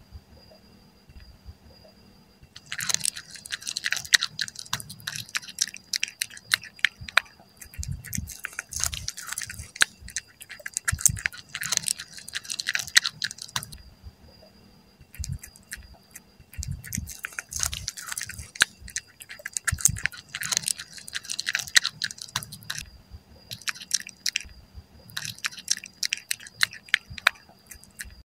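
A cat chewing and biting pieces of raw squid close to the microphone. It comes as bouts of quick wet clicks starting about three seconds in, with short pauses between the bouts.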